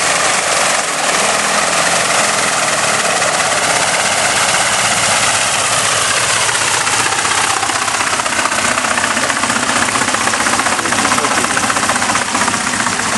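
Boeing Stearman biplane's radial engine running as the plane taxis on the ground, steady and loud. Its pitch falls about halfway through.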